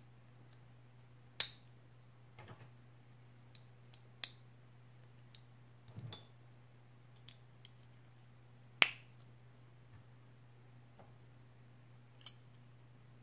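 Small hard-plastic Playmobil figure parts clicking and snapping as they are pressed on and pulled off by hand: about six sharp, separate clicks a second or more apart, the loudest about nine seconds in. A low steady hum runs underneath.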